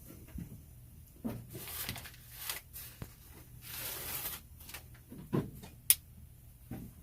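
Coleman pocket knife slicing through the tape and cardboard of a mailed package in a few scratchy strokes, with handling knocks and a sharp click about six seconds in.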